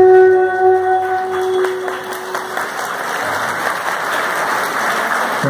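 The accompanying music's last note, held steady, fades out about two seconds in and gives way to audience applause.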